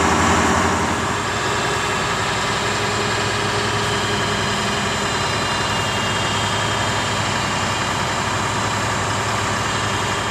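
Diesel engines of large mobile cranes running steadily under load while lifting a boat in slings.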